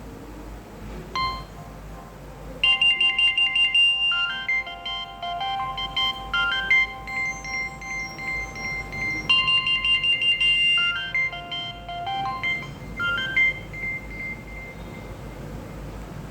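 Nokia 2760 phone's loudspeaker playing a polyphonic Nokia 6030 ringtone. A single short note comes first, then a bright synthesized tune of quick repeated and stepping notes. The tune starts its phrase over partway through and stops a few seconds before the end, leaving a faint hiss.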